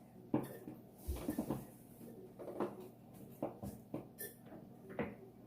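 Light knocks and clicks of cups and food being handled on a table, with a dull thump about a second in.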